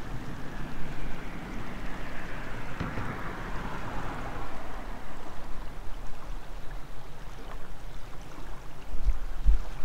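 Fast-flowing river water rushing past a sandy bank as a steady noise, with wind buffeting the microphone in a constant low rumble and two heavy gusts near the end. A whoosh that falls in pitch passes about two to four seconds in.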